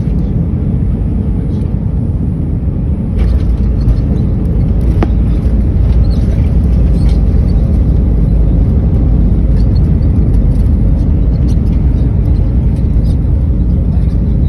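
Airliner cabin noise during landing: a steady engine and airflow rumble that grows louder about three seconds in as the wheels touch down. It then carries on as the heavy, steady rumble of the landing rollout on the runway.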